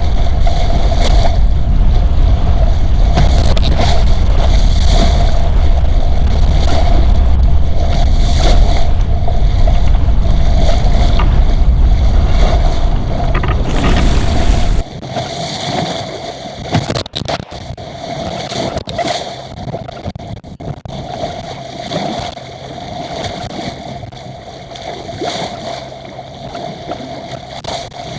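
Strong wind buffeting the microphone over water rushing past a small sailing yacht's hull. About halfway through, the wind rumble drops away abruptly, leaving water splashing and sloshing against the hull over a steady faint hum.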